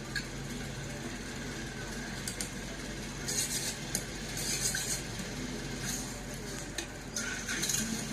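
A metal spatula scraping and clinking against a wok during stir-frying, in several short bursts. A steady low hum runs underneath.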